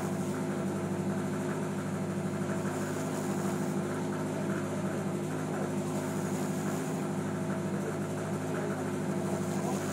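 A fishing boat's engine running steadily: an even drone with a strong low hum and no change in speed.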